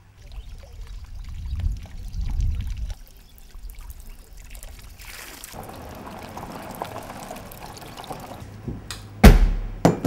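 Water pouring steadily from a fountain spout, with some low rumbling before it. A loud sharp knock comes near the end.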